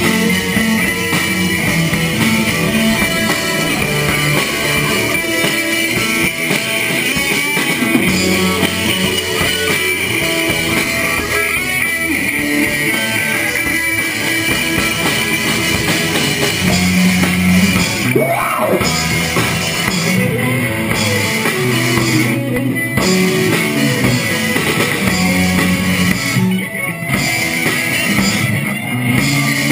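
Rock band playing live and loud: two electric guitars, an electric bass and a drum kit. There is one rising-and-falling pitch sweep about eighteen seconds in.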